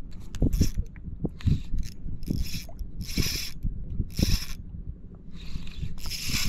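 Spinning reel cranked in short spurts, each a whirring burst about half a second long, roughly one a second: a micro jig being retrieved in jerks.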